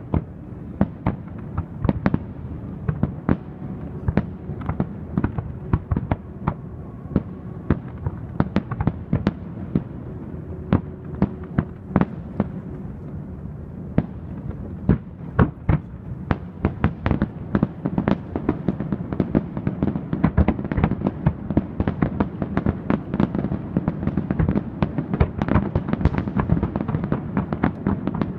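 Aerial firework shells bursting in quick, irregular succession over a continuous low rumble, the bangs coming thicker and faster in the second half.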